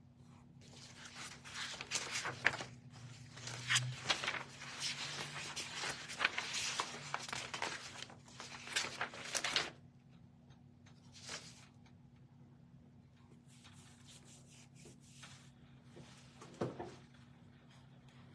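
Sheets of paper rustling and crinkling as they are handled and shuffled, busy for most of the first ten seconds, then a few fainter rustles and a single light thump near the end.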